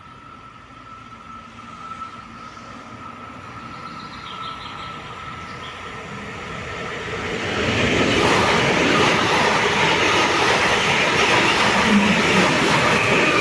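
Train approaching along the line, growing louder over several seconds, then running close past the platform from about eight seconds in, with a steady high whine throughout.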